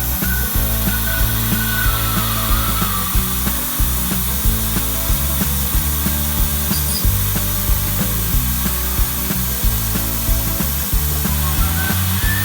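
DIY CNC machine milling, with a wavering high-pitched spindle whine and cutting noise, under background music with a steady beat.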